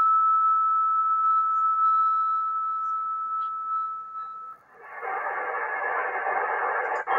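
The 2024 solar eclipse beacon's carrier received on an Icom IC-707 HF transceiver in upper sideband on 14.100 MHz: a loud, steady whistle-like tone that fades slightly and stops about four and a half seconds in. After a brief dip, a broad receiver hiss of band noise follows.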